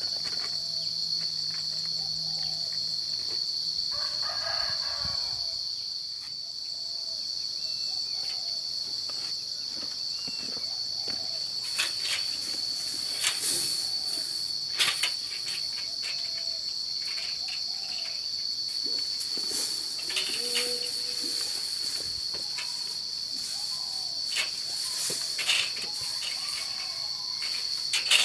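Steady high-pitched drone of insects, a rooster crowing about four seconds in, and scattered sharp knocks and clicks through the second half.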